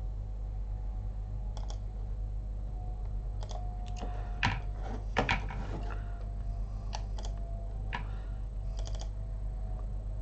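Computer keyboard being typed on in scattered, irregular keystrokes, over a steady low hum.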